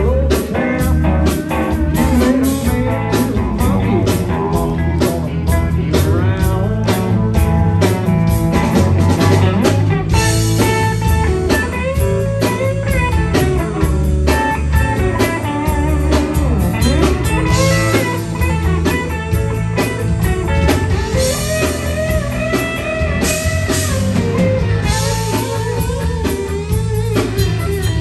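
Live band playing an instrumental blues-rock passage: a lead electric guitar plays bent single notes over bass guitar and drums. The cymbals come in louder about ten seconds in.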